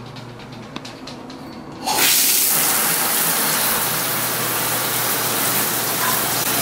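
A shower is turned on about two seconds in, and water sprays steadily into the shower stall, running to warm up.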